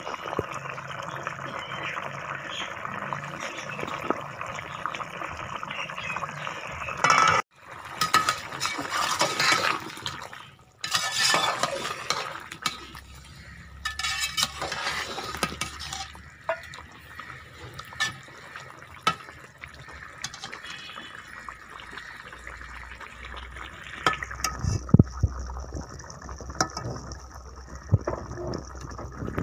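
Diced potatoes simmering in water in a pot, bubbling steadily as the water cooks off. A spoon clicks and knocks against the pot in the second half. Louder stretches of noise come about seven to twelve seconds in.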